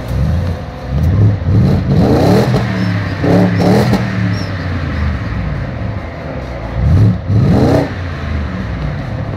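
BMW 6 Series engine through a loud aftermarket exhaust, revved in several quick throttle blips that rise and fall in pitch, settling back to idle between them.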